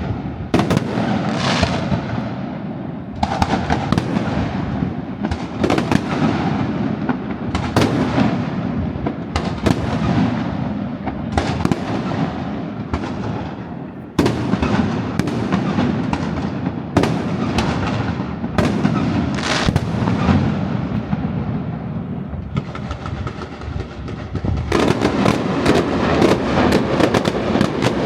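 Fireworks display: shells bursting one after another every second or two, each bang trailing off in a rumble, then a dense rapid crackle of many small reports in the last few seconds.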